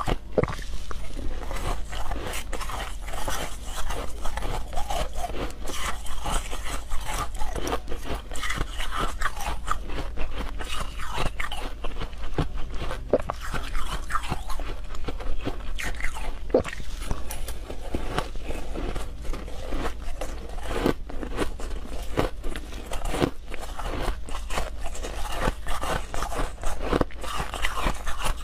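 Close-miked crunching and chewing of shaved frozen milk ice, many irregular crunches in quick succession, with a metal spoon scraping through the ice in a glass bowl. A steady low hum runs underneath.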